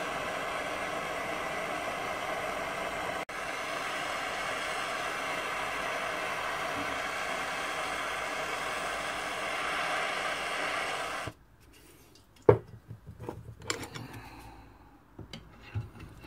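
Handheld butane-propane blowtorch flame hissing steadily, fed from a gas canister that is running low; the hiss cuts off about eleven seconds in. After that come one sharp metal knock and scattered light clinks of tools on the part.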